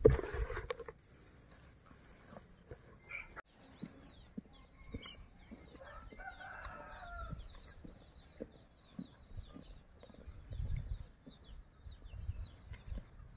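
Hands stirring chopped grass and bran feed in a rubber tyre tub make a brief loud rustle at the start. Then a chicken gives one drawn-out call lasting about a second and a half, over steady high chirping and a few soft knocks.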